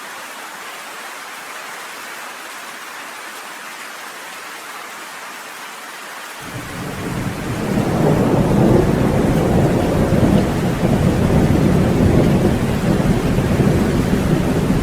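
Steady rain hissing, joined about six seconds in by a roll of thunder that swells over a second or two and keeps rumbling deep and loud through the rest.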